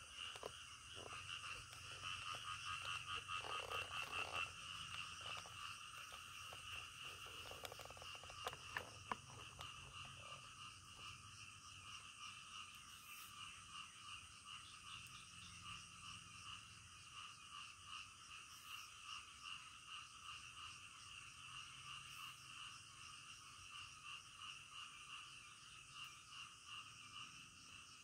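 Faint chorus of frogs calling in rapid, steady pulses, louder for the first few seconds. A few soft clicks come about eight to ten seconds in.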